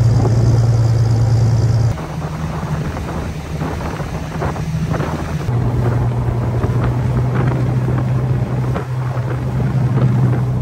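Fishing boat's engine running steadily underway, a loud low drone, with wind on the microphone. The drone shifts slightly in pitch about two seconds in and again about halfway through.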